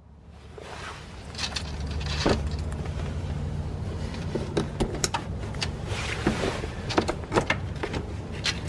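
Handling and plugging in the ABS wheel sensor's plastic wiring connector: a run of sharp clicks and knocks with rustling, over a steady low hum.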